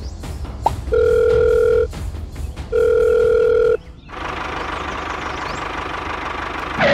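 Telephone ringing tone: two long, steady beeps of about a second each with a short gap between. From about four seconds in, a steady motor-like running noise follows.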